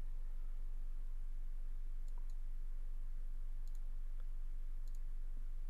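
Computer mouse clicking: a few sharp single clicks and quick double clicks, over a steady low electrical hum.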